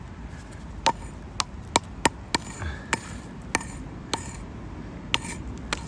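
A hand tool chipping and scraping at very hard-packed river flood deposit: about ten sharp, irregularly spaced taps as it strikes the compacted material.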